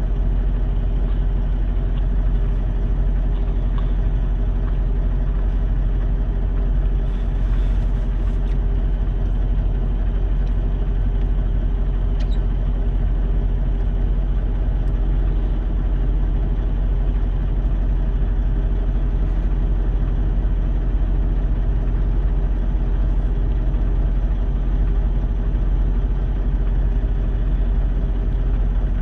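Semi truck's diesel engine idling, heard from inside the cab: a steady low rumble with an even hum.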